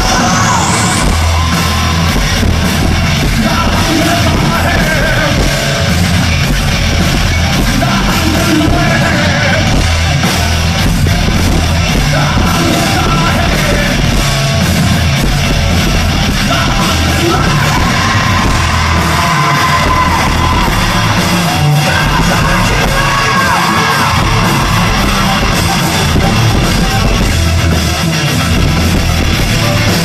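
Rock band playing live, a male singer's loud vocals over drums, bass and guitar.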